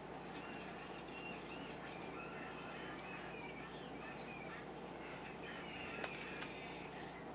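Birds chirping: many short, high, gliding chirps and squeaks, faint, played as an animal sound effect. Two sharp clicks come close together about six seconds in.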